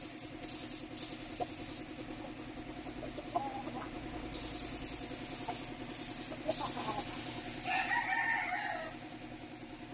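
Paint spray gun hissing in repeated bursts of a second or less as it lays paint on the truck cab, over a steady low hum. A rooster crows about eight seconds in.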